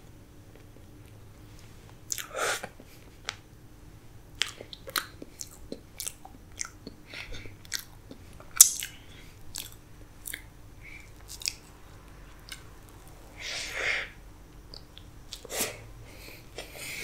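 Close-miked mouth sounds of chewing a mouthful of Black Forest cake: irregular wet smacks and clicks that start about two seconds in, with a few longer, louder squelches.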